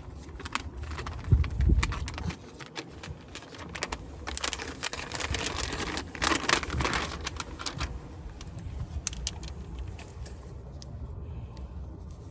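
Clicks, taps and rustling of an item and its wrapping being handled, with a heavy low bump about a second and a half in and louder rustling surges around the middle.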